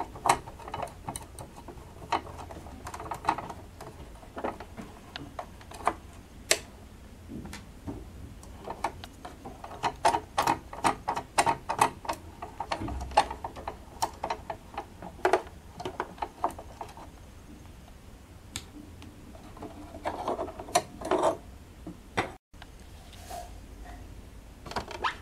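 Small irregular metal clicks and taps as the screws and needle plate of a Jaguar 592 portable sewing machine are undone and lifted off by hand. The taps come in dense clusters about ten seconds in and again near the end.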